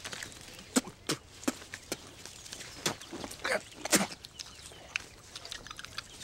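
Brief wordless vocal squeals and grunts, with scattered short clicks and rustles; the loudest cries come around the middle.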